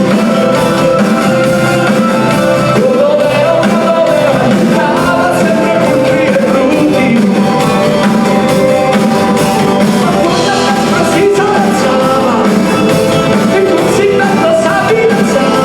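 Live rock band playing, with a singer's voice over the music.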